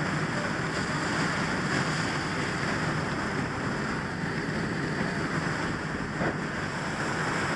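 Fire hose water streams spraying: a steady rushing hiss, with a low steady hum beneath it.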